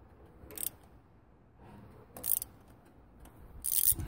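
Ratchet wrench clicking in short bursts as it turns out an injector hold-down bolt: three strokes, the last and longest near the end.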